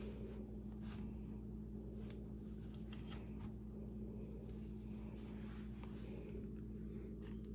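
Faint, scattered scrapes and clicks of hand tools working the rear sight into a pistol slide, over a steady low electrical hum.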